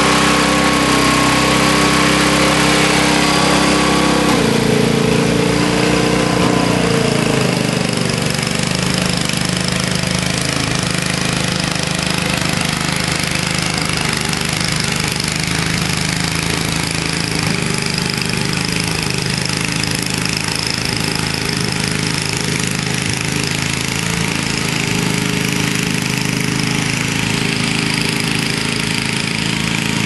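1962 Snow Bird S-262 snowblower's engine running steadily while the machine throws snow. The engine note shifts about four seconds in, then holds steady.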